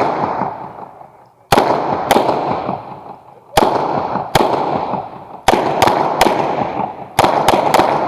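Uzi Pro 9mm pistol firing single shots in quick groups of two, two, three and then four, eleven shots in all, each shot followed by a long echoing tail.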